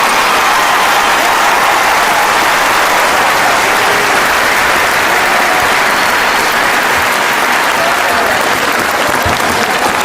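Large crowd applauding steadily, with a few cheering voices.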